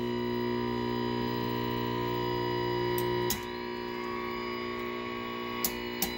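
Steady, distorted buzzing tone from a 1949 Philco 50T-1403 television's speaker while its controls are adjusted; about three seconds in it drops in level and changes tone, and a few short clicks of the knobs come near the end.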